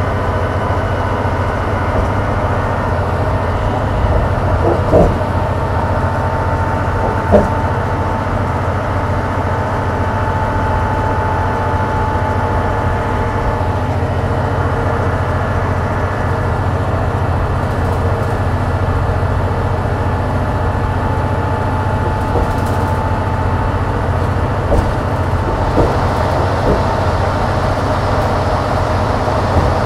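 New Flyer DE60LF hybrid articulated bus under way with its Caterpillar C-9 diesel and GM-Allison EP50 hybrid drive running: a steady low drone with a thin high whine over it. A few sharp rattles cut in briefly, twice a few seconds in and again near the end.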